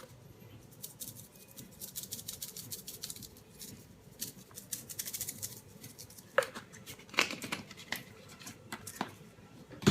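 Dry seasoning shaken from a shaker bottle, pattering onto raw pork ribs in a run of fine, irregular little clicks, with a few louder sharp taps or knocks, the loudest near the end.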